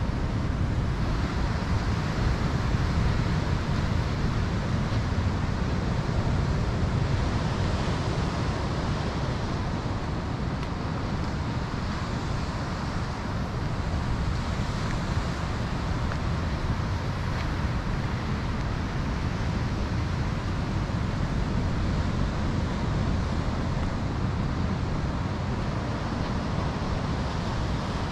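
Wind blowing across the microphone: a steady rumbling buffet with a rushing noise over it.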